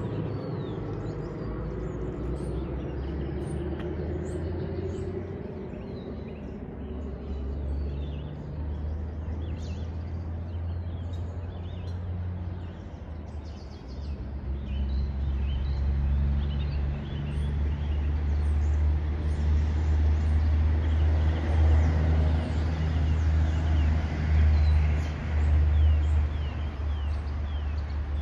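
Small birds chirping on and off over a steady low rumble that grows louder in the second half. A vehicle goes past in the first few seconds.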